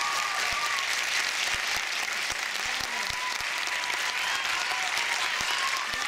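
Audience applauding steadily, a dense even clapping.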